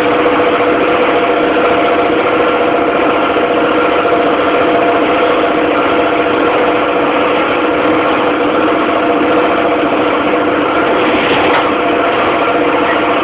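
A parked fire engine's engine running steadily, a constant drone that holds one pitch.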